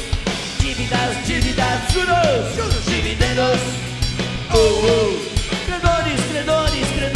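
Rock band playing live: drum kit, distorted electric guitars and bass under a male vocalist singing.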